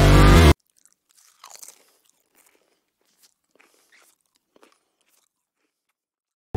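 Music cuts off about half a second in. Then come faint, scattered crunching sounds from a dog with a napa cabbage, loudest about a second and a half in.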